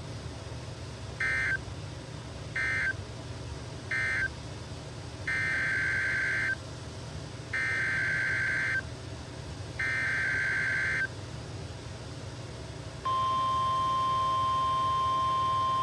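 Emergency Alert System data bursts from a NOAA Weather Radio broadcast: three short buzzy bursts (the end-of-message code), then three longer bursts of the same warbling data tone (the coded header of the next warning). About two seconds after the last burst a steady, single-pitch Weather Radio warning alarm tone begins and holds.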